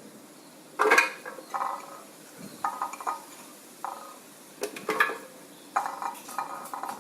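Short clinks and knocks of bowls and utensils against a blender jar as ingredients are put in, about ten separate strikes each with a brief ring. The blender is not running.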